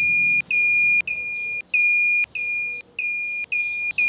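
Digital torque wrench beeping as the intake manifold bolts are tightened to the set torque. Short, high electronic beeps repeat about twice a second, each starting with a click.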